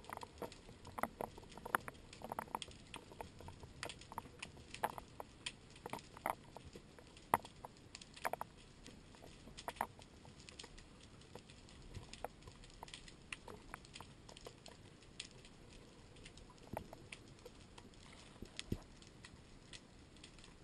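Underwater crackling: faint, irregular sharp clicks and pops, several a second and thicker in the first half, over a low steady hiss, heard through a diving camera's housing.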